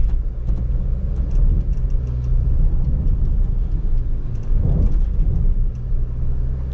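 2022 Jeep Grand Cherokee 4xe's turbocharged four-cylinder engine running under load as the SUV drives up a sandy slope in four-wheel high, a steady low rumble.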